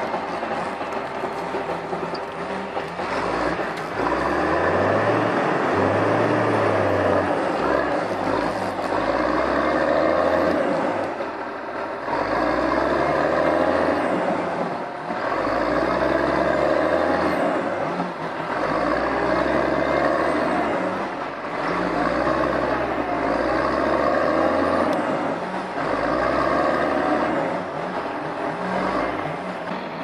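Caterpillar wheel skidder's diesel engine working hard under load, revving up and easing off in repeated surges about every two seconds as the machine strains with its front wheels lifting off the ground.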